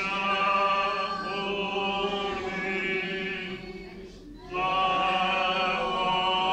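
A slow church hymn sung by voices, with long held notes and a short break for breath a little past halfway.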